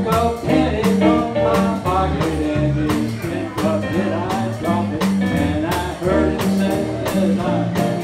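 Live small band playing an upbeat blues-jazz number: a drum kit keeping a steady beat under a walking low line, with electric guitar, keyboard and saxophone, and a man singing.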